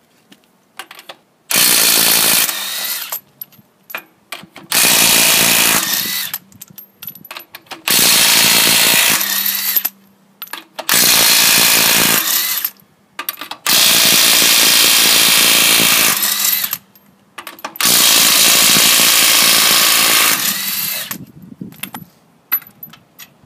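Hitachi WR18DBDL 18 V brushless 1/2-inch cordless impact wrench, set to its highest power mode, hammering six wheel nuts loose one after another. There are six loud bursts, each one to two and a half seconds long, about three seconds apart. The nuts have been on for 40,000 km and are a struggle to break free at first.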